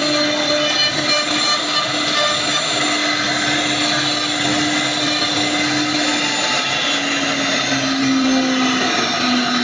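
CNC wood router running steadily, a dense machine noise with a steady hum that dips slightly lower in pitch over the last few seconds.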